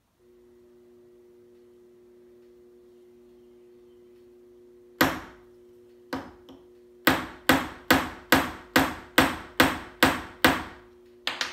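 Ball peen hammer striking a round-headed punch set in a sterling silver tube rivet through a pebble, flaring the tube's end over the stone. A single blow, then another, then a quick even run of about nine blows at a little over two a second, ending with a double tap. A faint steady hum sits underneath.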